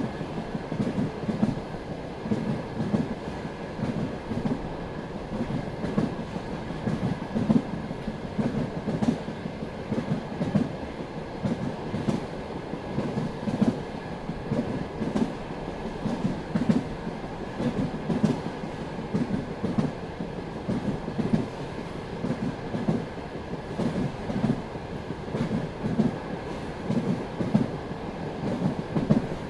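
Passenger train wheels clattering over rail joints at running speed: a steady low rumble with a run of knocks, about one or two a second, and a faint steady high whine.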